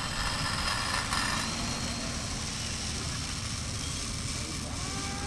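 Small electric motor and propeller of a radio-controlled Slow Stick park-flyer plane buzzing under power on its take-off run, loudest about the first second and fading as the plane pulls away.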